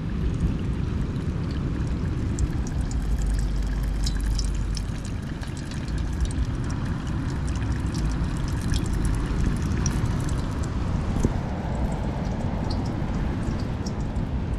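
Samosas frying in hot oil in a pan: a steady sizzle with scattered small crackles and spits, over a low rumble.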